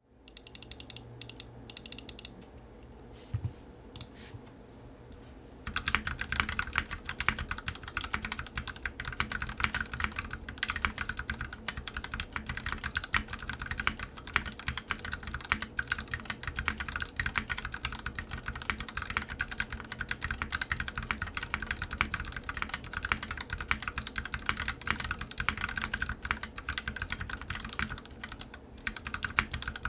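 Typing on a KBD67v2 MKII mechanical keyboard with lubed Gateron Black Ink linear switches, a brass plate and EPBT PBT keycaps. A few scattered keystrokes come first, then steady, fast typing from about six seconds in.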